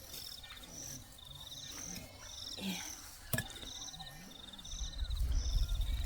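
Insects chirping in short, repeated pulsed trains about once a second, with a single sharp click about halfway through and a low rumble coming in near the end.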